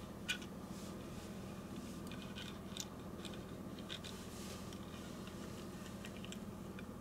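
Light clicks and scratches of fingers and fingernails handling a small diecast toy car, with one sharper click just after the start, over a steady low background hum.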